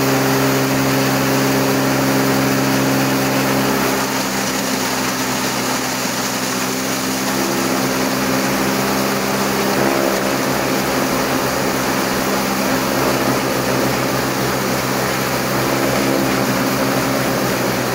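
Electric chaff cutter running with a steady hum while green grass stalks are fed in and chopped. From about four seconds in the hum roughens and drops a little under the load, with a rough chopping noise mixed in.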